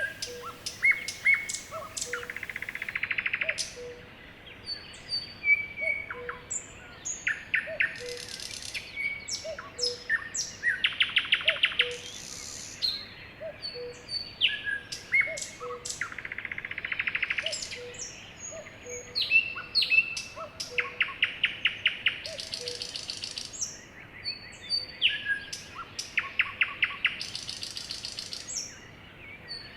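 Several songbirds singing together, overlapping rapid trills with short whistled notes and chirps. A faint low note repeats about once a second underneath.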